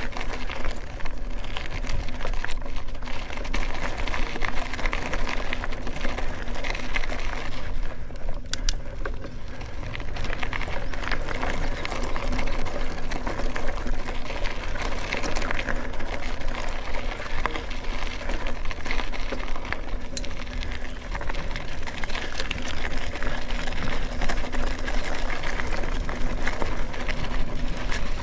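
Mountain bike rolling along a gravel and dirt single-track: a continuous crunch and rattle of the tyres and bike over the rough surface, full of small clicks.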